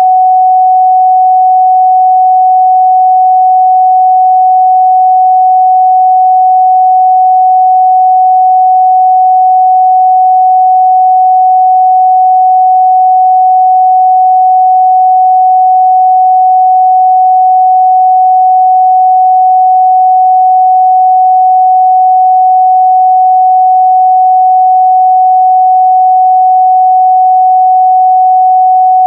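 A steady 744 Hz sine-wave test tone, one pure pitch held at constant loudness without a break.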